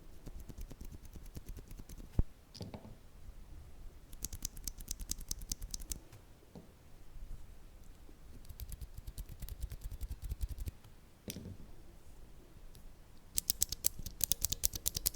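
Mechanical keyboard switches pressed in rapid runs, one model after another. Muted presses of lubed Gateron Silent Brown tactile switches come first, then crisper presses of Hako Royal True tactile switches, then dampened Outemu Silent Grey tactile switches. Near the end come sharp, loud clicks of Xinda Blue clicky switches.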